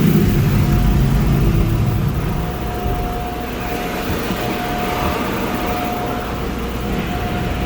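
PECO car wash tunnel machinery heard from inside the car, a steady mechanical rumble and wash noise. A steady high whine comes in about three seconds in and holds.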